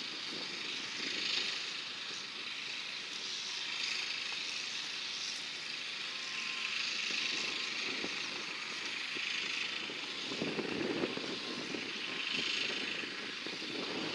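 Steady outdoor background noise, a hiss-like rush with a louder low swell about ten seconds in.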